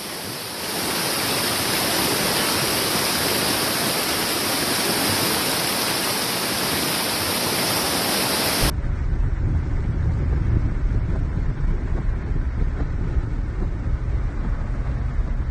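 Fast, loud floodwater rushing down a swollen creek: a steady, even rush. About nine seconds in it cuts abruptly to a low, uneven rumble of a car ploughing through deep floodwater.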